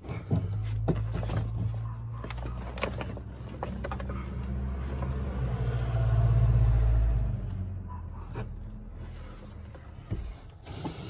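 Power window motor running in the door, driving the window regulator, a steady low hum that swells and then stops about seven and a half seconds in, with clicks and knocks of parts being handled.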